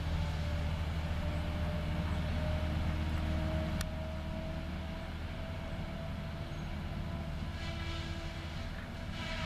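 Caterpillar 573C wheeled feller buncher's diesel engine running steadily under load, with a faint whine that slowly rises in pitch. A sharp click comes about four seconds in.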